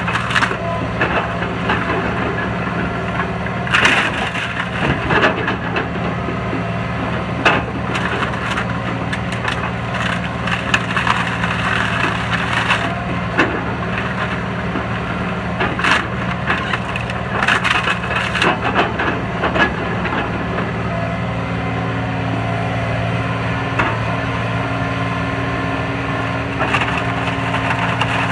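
Excavator grapple crushing a pile of wooden pallets: repeated sharp cracking and splintering of wood over the steady hum of the machine's engine. The cracks come thickest in the first two-thirds and thin out near the end.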